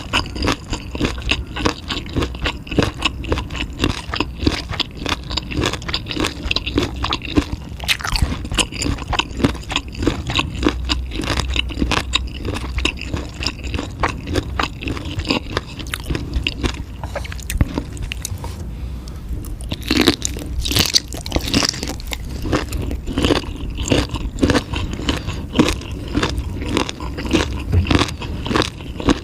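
A person chewing and crunching food in a rapid run of crisp clicks, with a short lull about two-thirds of the way in, then louder crunching.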